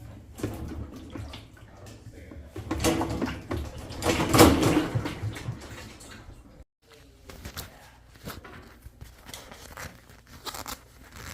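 Kenmore washing machine running with water sloshing in the tub, a low rumble and irregular knocks, louder twice in the first half; the knocking is the complaint the machine was brought in for. The sound cuts out for a moment about seven seconds in.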